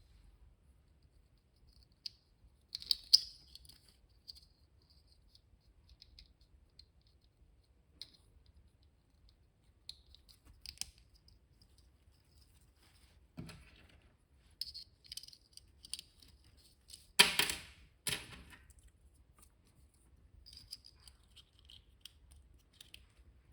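Small plastic handling noises from an action figure and its packaging: scattered light clicks and taps. There is a sharper click about three seconds in and a louder rustling scrape about seventeen seconds in.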